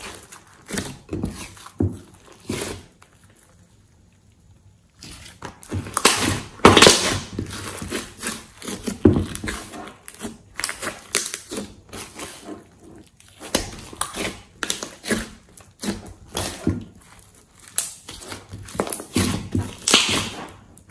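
Thick glossy slime being kneaded, folded and squeezed by hand in a glass dish: irregular wet squishes and sharp crackling clicks as it is pressed and stretched, with a quieter pause a few seconds in.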